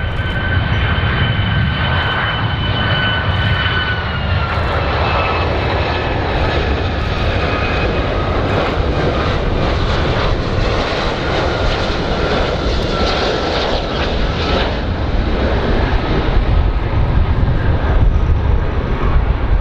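Boeing 757 airliner on landing approach, its twin turbofan engines running with a steady rumble and a high whine that steps slightly lower about four seconds in.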